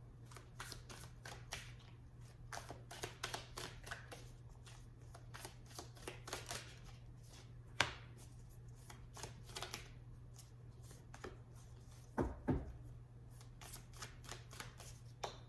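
A large stack of oracle cards from two decks mixed together being shuffled by hand: a run of quick, irregular card clicks and flicks, with a couple of louder knocks about halfway and about three quarters through, over a steady low hum.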